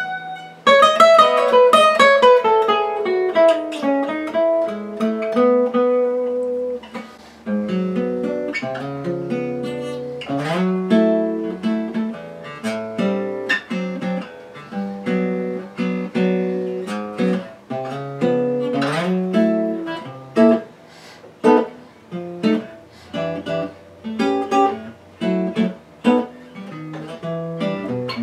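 1929 Gibson L5 carved archtop acoustic guitar played solo: jazz chords and single-note lines, strung with steel strings, opening on a loud struck chord.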